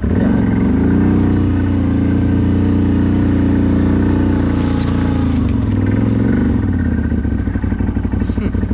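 CFMoto 1000 ATV's V-twin engine running under throttle while riding: the revs climb right at the start and hold steady for about five seconds, then ease off, rise and fall once more, and settle lower.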